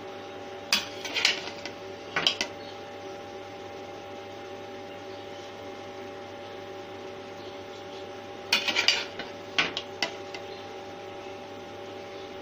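Metal serving spoon clinking and scraping against the plate and pot while cooked rice is dished out, in a few brief clusters: two early on and more near the end. A steady low hum runs underneath.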